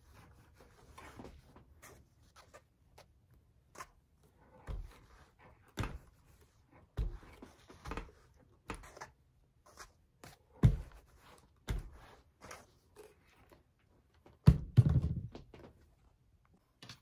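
Scattered soft knocks, thumps and fabric rustles as muslin pieces are pressed with a steam iron on a padded pressing mat and the iron is set down and picked up. The loudest thump comes about fifteen seconds in.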